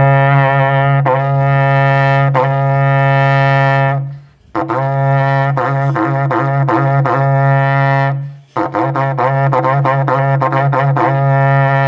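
A berrante, the Brazilian cattle-driver's ox horn, blown in three long low blasts with short breaths between them. The first blast is mostly held steady; the later ones are broken by rapid warbling flips in pitch, the berrante call (toque).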